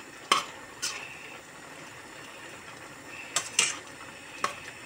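A metal spoon stirring thick tomato and pepper sauce in a stainless steel pot, clinking sharply against the pot several times.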